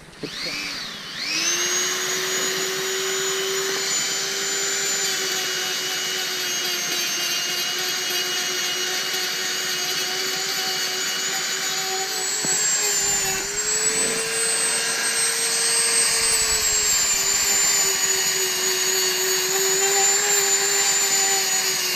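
Handheld rotary tool spinning up and running with a steady high whine as it sands through the red paint on a plastic motorcycle flyscreen to give it a worn patina. Its pitch dips and then rises a little about two-thirds of the way through.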